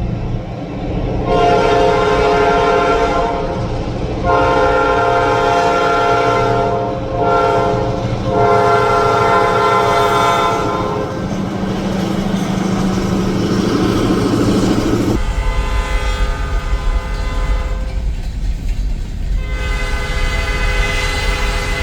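EMD SD9 diesel locomotive's air horn blowing the grade-crossing signal: two long blasts, a short one and a long one. Then, after a cut, a heavy low locomotive rumble with the horn sounding again, long and steady, near the end.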